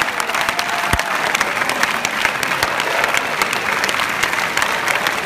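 A large crowd applauding steadily: many hands clapping at once, with no let-up.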